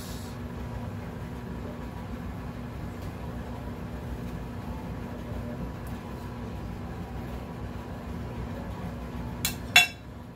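Two sharp clinks of glass dishware near the end, about half a second apart, the second much louder, over a steady low hum.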